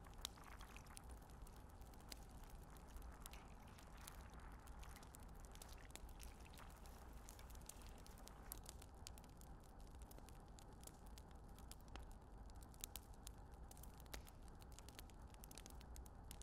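Near silence: a faint low rumble with scattered soft clicks and taps as pieces of meat, tomatoes and chillies are set by hand into a metal cooking pot.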